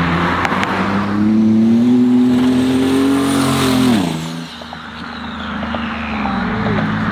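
Turbocharged V6 pickup truck accelerating at full throttle, its engine note rising for about three seconds, then dropping sharply about four seconds in as the throttle comes off and settling to a lower, steadier drone. A faint high whistle rises along with the engine and fades away after the lift.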